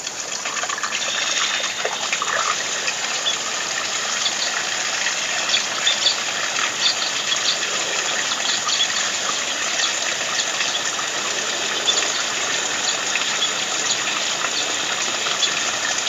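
Water gushing from an opened tap on a PVC pipe into a shallow pond of water, changing the pond's water. The rush builds over the first second and then holds steady, with many small splashes.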